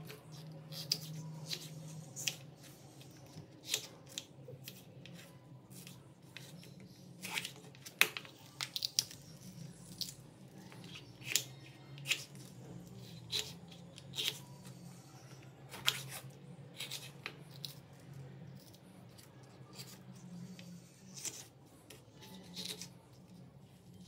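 Kitchen knife cutting green capsicum (bell pepper) into pieces on a wooden cutting board: irregular sharp taps of the blade striking the board as it slices through the pepper.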